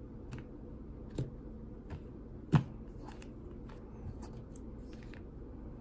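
Scattered light clicks and taps from handling a trading-card box and its foil packs, with the sharpest tap about two and a half seconds in.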